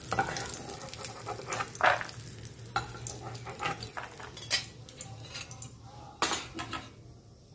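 Peanuts sizzling in hot oil as a steel ladle scoops them out of the pan. The ladle scrapes and clinks sharply several times against the pan and a steel bowl, and the sizzling fades near the end.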